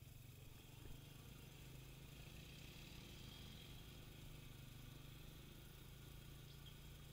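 Near silence with a faint, steady low hum from the moving vehicle carrying the camera.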